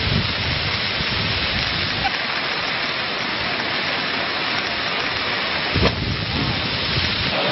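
Floodwater rushing, a steady even rush of water. There is a short thump about six seconds in.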